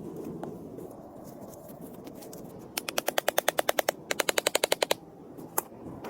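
Two rapid runs of sharp, evenly spaced clicks, about a dozen a second, each lasting about a second, then a single click near the end.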